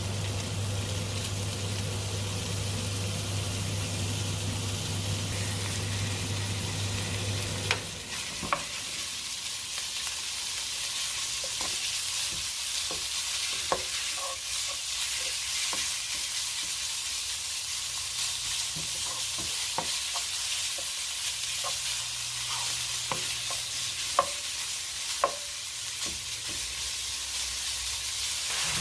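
Food sizzling and frying in a pan, with a steady hiss and scattered light clicks and knocks of a utensil stirring against the pan. A steady low hum runs underneath and stops about eight seconds in.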